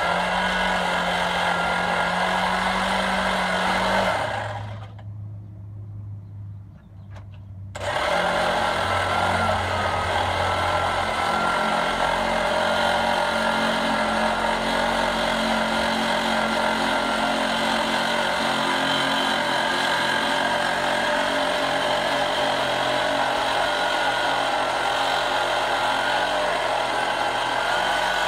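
Power carcass splitter saw running as its blade cuts down the spine of a hanging hog carcass to split it in half. It runs steadily, drops away about four seconds in, starts again about eight seconds in and keeps cutting.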